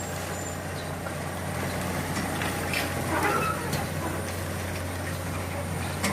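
Excavator engine running steadily, with a few light knocks around the middle.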